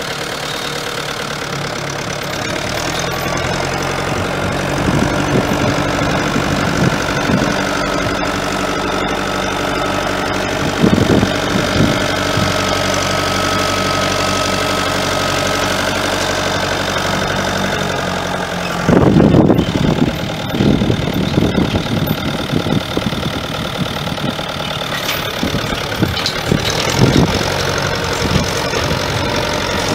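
Farm tractor engine running steadily as it pulls a tined cultivator and seeder across a paddock, with several louder irregular bursts of noise, the biggest about two-thirds of the way through.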